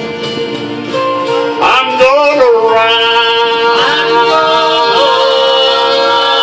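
Closing bars of a country-style gospel song: a man sings over instrumental accompaniment with guitar, and the music then settles into long held notes about halfway through.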